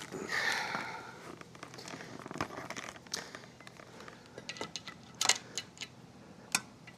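Handling noises: a rustle at first, then scattered light clicks and taps, with a few sharper clicks near the end.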